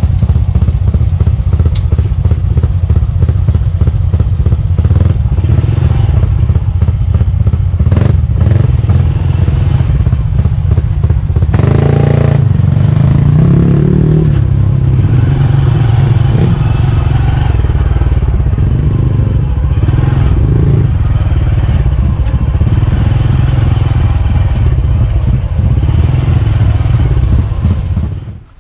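Honda CT125's single-cylinder engine running steadily, then stopping shortly before the end.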